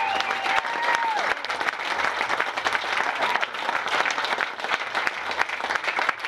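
A brass band's last held notes die away about a second in, followed by an audience's sustained applause.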